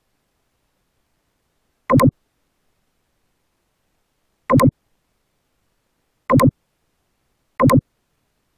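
Four short double clicks of a computer mouse button, press and release, spaced about two seconds apart, with near silence in between.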